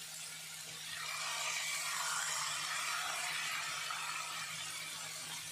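Shredded potato strips deep-frying in hot oil, a steady hissing sizzle that swells louder about a second in and eases slightly near the end, over a faint low hum.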